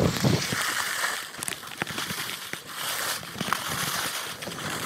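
Skis hissing and scraping over packed, chopped-up snow on a downhill run, sped up to double speed, with a rising and falling hiss and scattered crackles.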